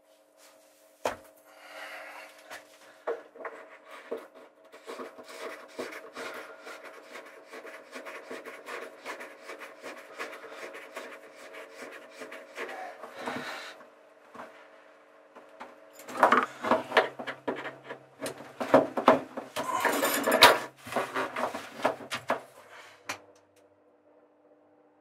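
Plastic hose-tail fitting being screwed by hand into a Trudesign composite through-hull seacock, with a long run of small clicks and rubbing of the threads. About 16 seconds in comes a louder stretch of rubbing and knocks as the hose is worked onto the fitting.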